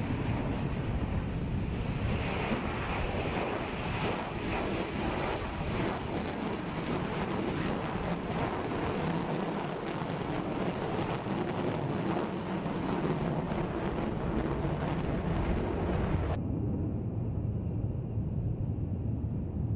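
B-1B Lancer bomber's afterburning jet engines roaring on a takeoff run and climb-out, a steady roar with crackle through the middle. About sixteen seconds in the high end suddenly drops away, leaving a duller rumble.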